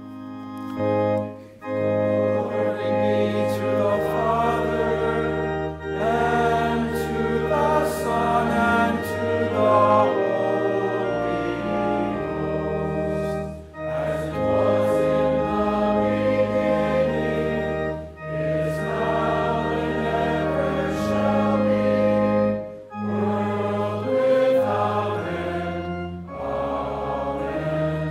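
Organ accompanying a congregation singing a hymn together, in sustained phrases with short breaks about every four to five seconds.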